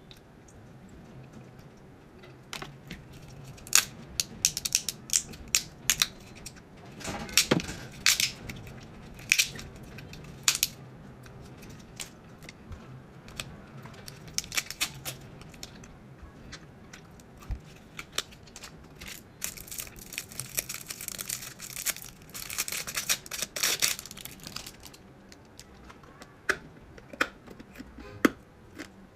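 Candy being unwrapped and eaten close to the microphone: scattered sharp crunches and crackles, with a longer spell of crinkling about twenty seconds in.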